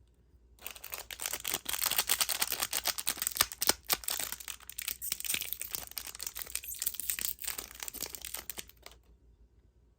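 Candy packaging crinkling and tearing as it is handled and opened close up: a dense run of crackles and small clicks that starts about half a second in and stops about a second before the end.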